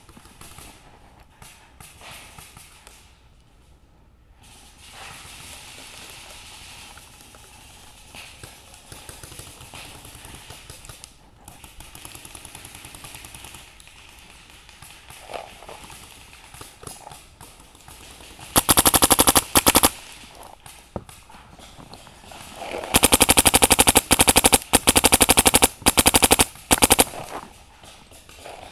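Paintball marker firing rapid strings of shots close to the microphone, first a short burst about two-thirds of the way in, then repeated bursts over several seconds near the end. This is the player's own electronic marker, a MacDev Clone GTi, shooting from behind cover after a quiet stretch.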